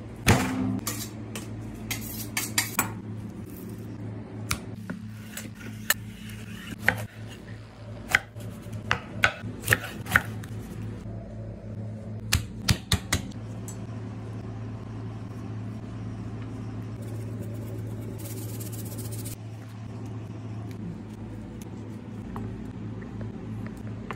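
Knife and meat knocking and tapping on a wooden cutting board, a quick series of sharp knocks in the first half, then fewer. A steady low hum runs underneath.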